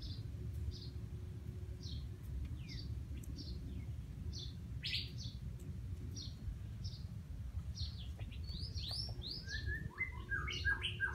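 Bird chirping: short high chirps repeating about every half second. Near the end they come in a quicker, denser run at several pitches, over a steady low rumble.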